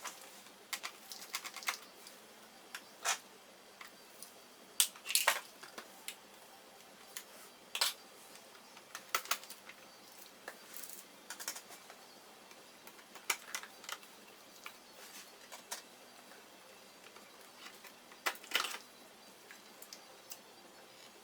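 Irregular small clicks and taps of screws, a screwdriver and plastic parts being handled as a Toshiba Qosmio G40 laptop is taken apart. Some come in quick clusters, with quiet gaps between.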